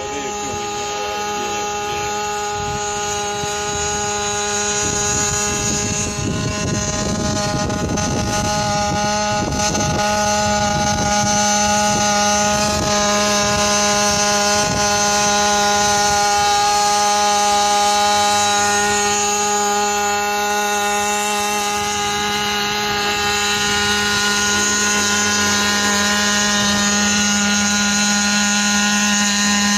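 eirobotix D130 X4 petrol-electric hybrid quadcopter in flight: its combustion engine-generator and rotors make a steady hum that holds one pitch and grows louder as it comes closer. A rough low rumble runs for a few seconds a little before the middle.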